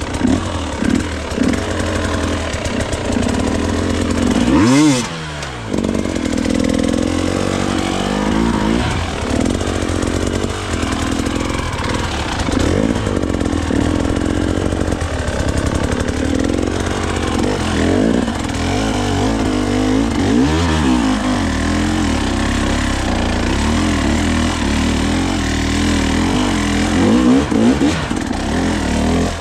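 Dirt bike engine working on rough terrain, its revs rising and falling constantly, with sharp blips of the throttle about five and twenty seconds in.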